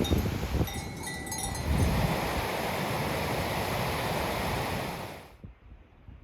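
Wind buffeting the microphone, with a few thin ringing bell tones about a second in, then a steady rushing noise that cuts off suddenly near the end.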